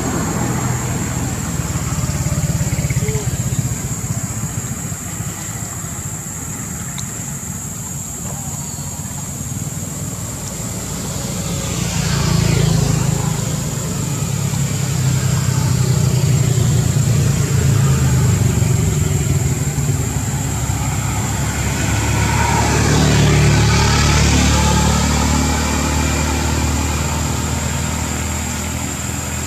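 Steady low hum of a running motor engine, swelling louder twice, once near the middle and once later on.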